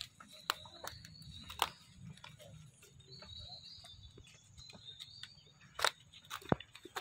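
Outdoor ambience: scattered sharp clicks and snaps, the loudest near the end, with faint thin high tones coming and going over a low background hum.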